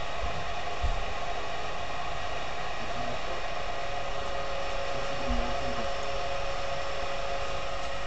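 Lennox SLP98V gas furnace running: a steady fan-motor whir with a whine on top that slowly falls in pitch from about halfway, as the furnace ramps back down from second stage. Two soft thumps, about a second in and near the middle.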